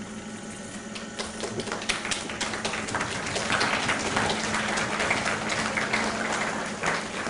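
Steady hum of a Van de Graaff generator's drive motor, with scattered clicks early on giving way to a dense patter of audience applause from about three and a half seconds in, as the static-charged tin can rolls.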